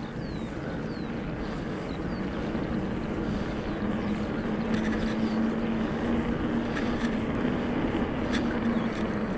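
Electric mountain bike being ridden: steady rushing wind and tyre noise, with a low steady hum that comes in about three seconds in.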